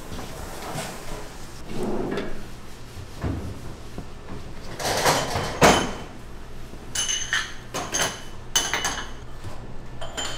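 Kitchen prep clatter: knocks and scraping, the loudest a sharp knock about five and a half seconds in, then a run of ringing clinks of utensils and dishes in the second half.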